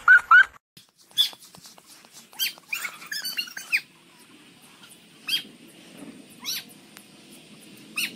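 A Chihuahua's high, whining, laugh-like vocalisation, gliding up and down for about half a second, then a scattering of short, high chicken calls.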